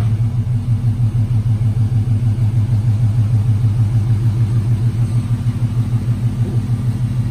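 Swapped Nissan VK56 5.6-litre V8 in a Nissan Xterra idling through JBA long-tube headers, catless B-pipes and a JBA exhaust: a steady, low, pulsing exhaust note with no revving.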